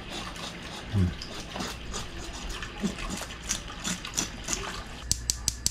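Water running from a kitchen tap into a sink, splashing over whole porgies being rinsed in a bowl. Near the end, a quick, even ticking of a background music beat begins.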